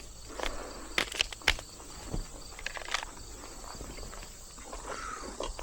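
A handgun being loaded and made ready, giving a few sharp clicks about a second in and another near three seconds, with some shuffling. Crickets chirp steadily throughout.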